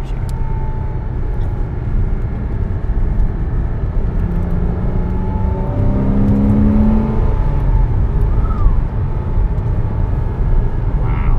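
Porsche 987.1 Cayman S's 3.4-litre flat-six running while driving, over a steady low road rumble. About four seconds in the engine note climbs in pitch as it revs up, then drops away a little after seven seconds.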